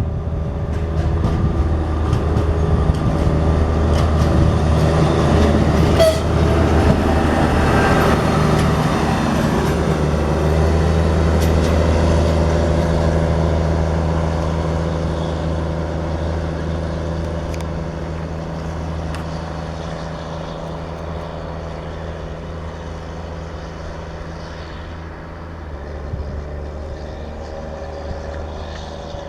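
Diesel train running past with a steady low engine drone, loudest a few seconds in and then slowly fading as it moves away, with a sharp metallic click about six seconds in.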